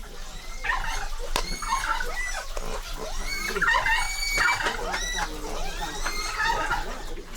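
Animal calls: many short, high, wavering cries one after another, rising and falling in pitch.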